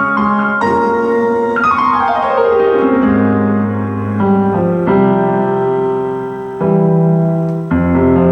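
Instrumental keyboard music, piano-like sustained chords, with a quick descending run of notes about two seconds in.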